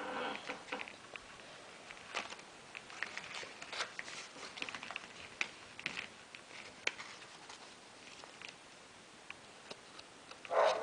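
Origami paper units rustling and crinkling as they are handled and slotted together: scattered light crackles and ticks, with a louder burst of handling near the end.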